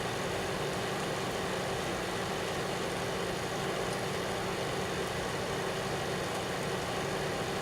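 Daewoo microwave oven running with a steady hum and fan noise.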